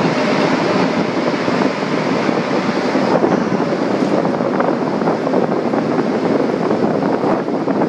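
Montreal Metro rubber-tyred train running at speed, heard from inside the cab: a loud, steady rolling rumble and hiss. The hiss thins a little about three seconds in, as the train comes out of the tunnel into the station.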